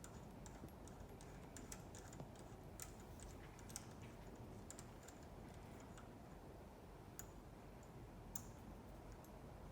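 Faint, irregular light metal clicks and taps of a wrench working on the retaining nuts of a plunger pump's valve clamp as they are undone.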